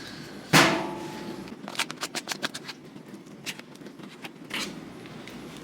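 Kitchen utensil scraping and knocking against a pan as a thick, sticky dessert mixture is scraped into it: one loud clatter, then a quick run of sharp clicks and scrapes, and a few more later.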